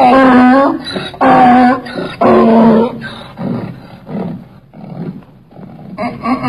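Donkey braying: three loud, even-pitched calls about a second apart, then quieter rasping breaths, and a new call beginning near the end.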